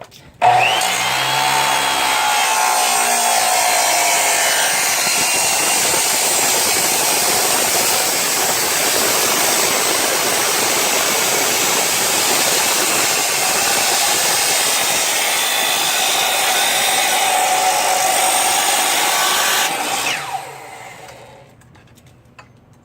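Miter saw fitted with a 10-inch abrasive cut-off wheel starts up and grinds through 3-inch, 16-gauge metal tube with a loud, steady grinding for about nineteen seconds. It then cuts off and the wheel spins down.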